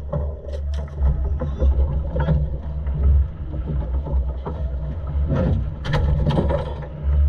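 A boat's Volvo Penta engine running with a steady low drone, with some wind on the microphone. Over it come irregular knocks and thumps as a large yellowfin tuna is hauled over the gunwale and lands on the deck, loudest about five and a half to six and a half seconds in.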